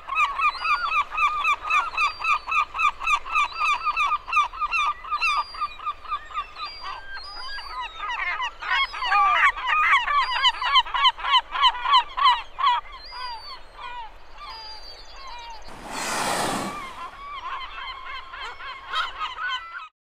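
Gulls calling in fast, repeated cries, in a dense overlapping chorus for a few seconds midway. Near the end comes a single rush of air about a second long, a humpback whale's blow.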